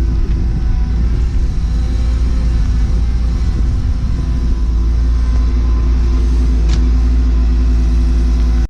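Cat 314E excavator's diesel engine running steadily with a heavy low rumble, with one brief sharp sound near the end.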